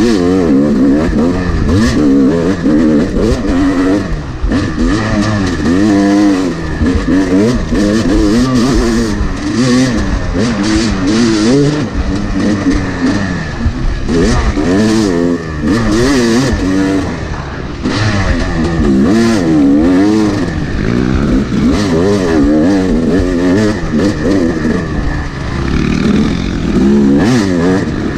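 2011 Yamaha YZ250 two-stroke dirt bike engine being ridden hard, its pitch rising and falling again and again as the throttle is worked on and off.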